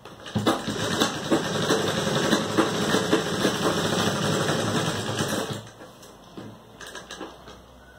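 Sewing machine stitching a seam: a fast, even run of needle strokes that starts just after the beginning and stops about five and a half seconds in, followed by a few faint clicks.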